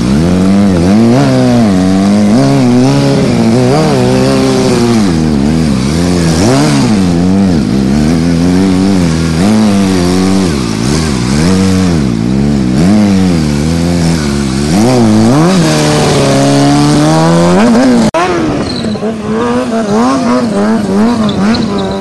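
Sport motorcycle engine revving up and down again and again as the throttle is worked through a wheelie, held high for a couple of seconds near the end, then cut off sharply about 18 s in and running at lower, quieter revs.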